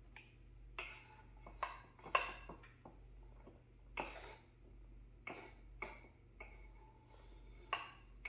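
Chopped green chillies being scraped off a wooden cutting board into a bowl: a metal utensil taps and scrapes against the board and the bowl's rim in a string of light, irregular clicks.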